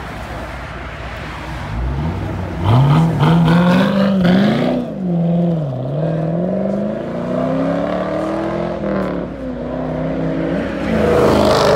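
2010 Chevy Camaro SS's 6.2-litre V8 running through an X-pipe with the resonators and mufflers deleted: a low idle rumble, then about two seconds in the car pulls away hard, the exhaust note climbing steeply and dipping at each gear change as it accelerates away.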